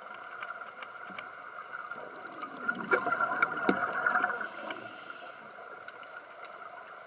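Scuba regulator exhaust heard underwater: a burst of exhaled bubbles swells up about three seconds in and lasts about a second and a half. Under it runs a steady hiss with scattered small clicks.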